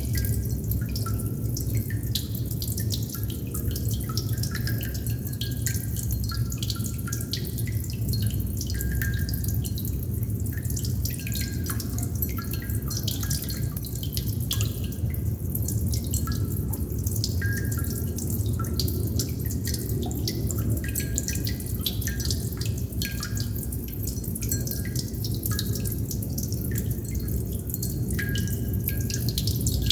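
Water droplets dripping: many small plinks in quick, irregular succession, some with a brief pitched ring, over a steady low rumble.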